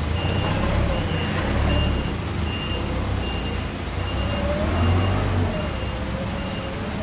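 A paper-roll clamp forklift's reversing alarm beeps steadily, about one high beep every 0.7 seconds, over its engine. The engine swells twice, around a second and a half in and again around five seconds, with a wavering whine rising and falling alongside it.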